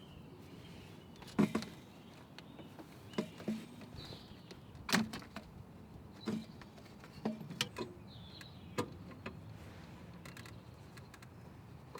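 Metal tools and engine parts clicking and knocking while work goes on in a car's engine bay: about eight separate sharp knocks at uneven intervals, the loudest about a second and a half in and about five seconds in.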